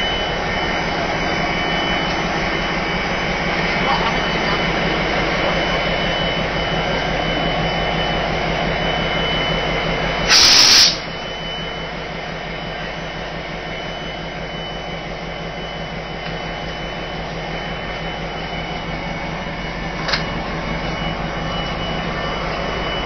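Class 57 diesel locomotives' EMD V12 engines idling close by with a steady rumble and hum, heard during coupling. About ten seconds in, a short, loud burst of hiss, with a small click near the end.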